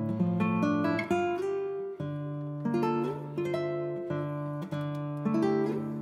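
Background music on acoustic guitar: plucked notes and chords that ring and fade, changing about once a second.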